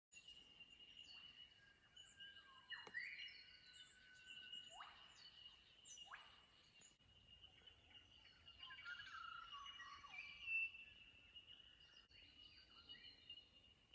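Faint chorus of wild birds chirping and whistling, with a few calls that sweep steeply downward, over a steady high-pitched tone.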